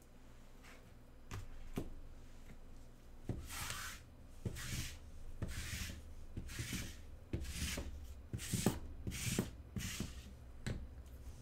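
Gloved hands handling trading-card packs and wrappers: two light knocks, then a run of about eight short, hissy swishing rustles, roughly one a second.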